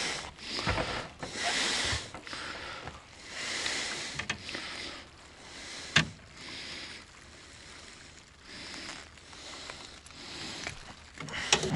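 Wind gusting over the microphone, with handling knocks and one sharp knock about six seconds in.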